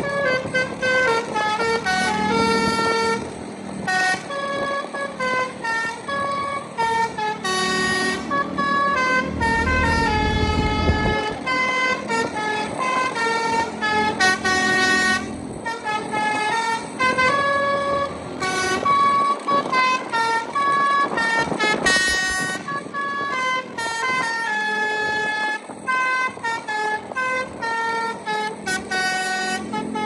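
A bus's basuri melody horn, played by hand from a pianika-style keyboard, plays a tune as a fast run of separate held notes with no break. Road traffic and a passing engine rumble sound underneath.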